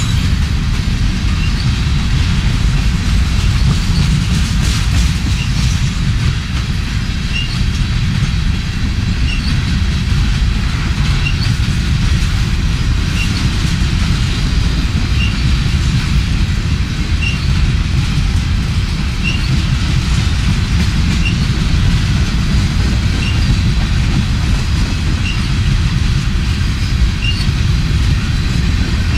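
Freight train of hopper cars rolling past: a steady, heavy rumble of steel wheels on rail, with a short high squeak recurring about every two seconds.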